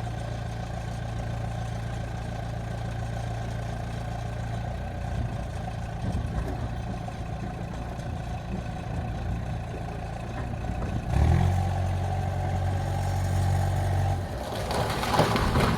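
Heavy equipment engine running steadily, revving up about eleven seconds in and easing back a few seconds later, with a brief loud burst of noise near the end.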